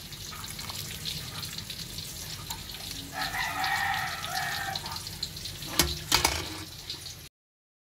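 A rooster crows once, a pitched call lasting about two seconds, over a steady background hiss. Two sharp knocks follow near the end.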